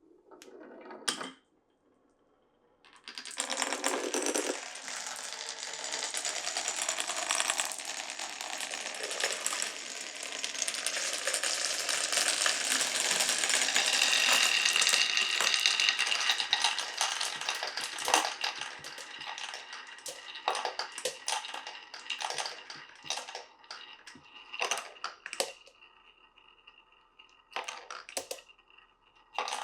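Many glass marbles rolling and clattering down a wooden marble run: a dense, continuous rattle starts about three seconds in and is loudest around the middle, then thins out into separate clicks and knocks near the end.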